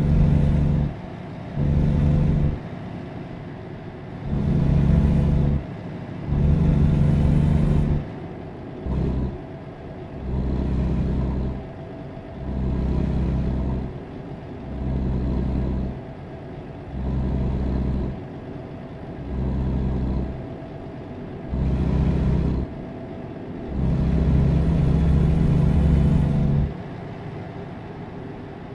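Low machine hum that switches on and off abruptly, in bursts of one to two and a half seconds about every two seconds, with a faint hiss on a few of the bursts.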